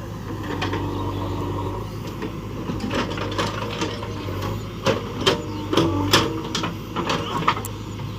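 Diesel engine of a JCB 3DX backhoe loader running steadily, with a run of sharp metallic knocks and clanks starting about three seconds in and lasting several seconds.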